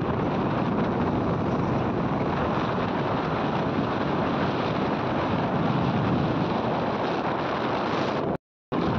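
Wind rushing over the microphone with road noise from a moving vehicle, a steady noisy rush. It cuts out completely for a moment near the end.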